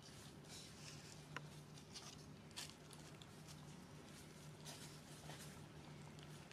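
Near silence: faint soft rustles and a few light ticks over a faint steady low hum.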